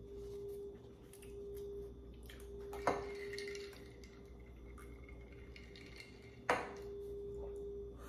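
Two sharp clinks of metal utensils against a dish, about three seconds in and again about six and a half seconds in; the first leaves a brief ringing. Faint scattered clicks of handling food, over a steady low hum.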